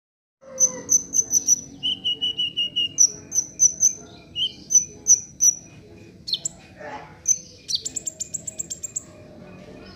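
Kolibri ninja (a sunbird) singing: quick series of sharp, high chips with short trills in between, and a fast run of about ten ticking notes near the end.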